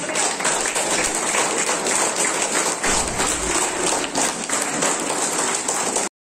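Audience applauding: a crowd of adults and children clapping steadily, which cuts off suddenly near the end.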